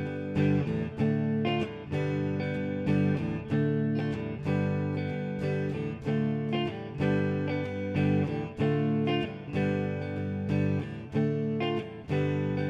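Background music: guitar chords strummed in a steady rhythm.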